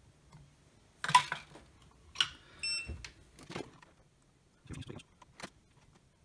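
Clicks, knocks and taps of tools being handled as a soldering iron and solder wire are picked up and brought to a circuit board. The loudest click comes about a second in. A short electronic beep sounds near the middle.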